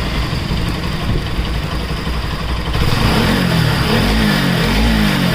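Motorcycle engine running, with a man's voice coming in about three seconds in.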